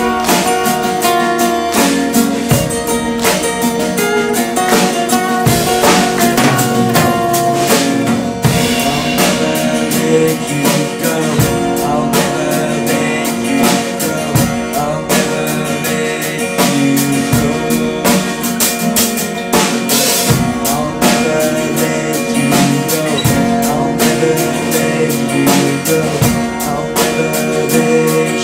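A metalcore band playing an unplugged song live: strummed guitars over a drum kit keeping a steady beat.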